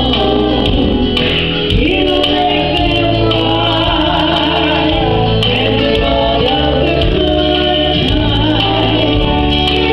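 A woman singing a gospel song with instrumental accompaniment, amplified through a PA loudspeaker; she holds long notes that bend and glide.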